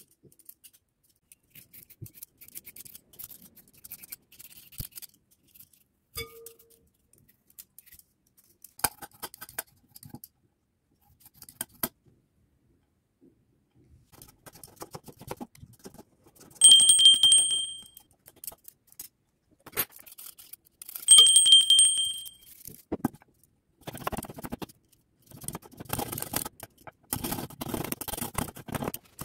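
A metal julienne peeler shredding carrot: scrapes, clicks and light knocks against the board and bowl. Twice, a bright ringing ting stands out as the loudest sound. Near the end comes a denser run of scraping and chopping as a metal tool works the carrot shreds on a wooden board.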